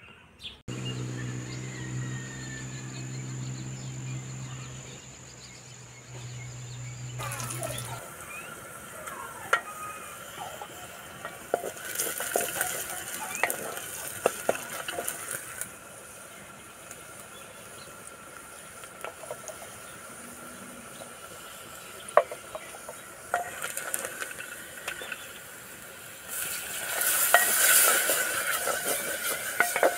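Onions sizzling in hot oil in an earthenware pot, stirred with a spatula that scrapes and clicks against the clay. A steady low hum runs for the first several seconds, and near the end the sizzling flares up loudly for a few seconds as a cup of water goes into the pot.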